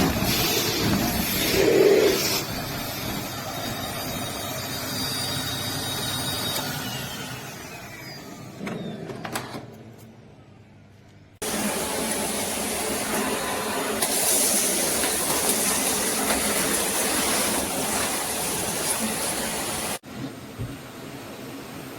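Bosch BGS05X240 bagless cylinder vacuum cleaner running with a steady rushing hiss. About six seconds in, its motor winds down with a falling whine and fades out. A little past halfway it cuts back in at full running with a brighter high hiss, then drops abruptly near the end.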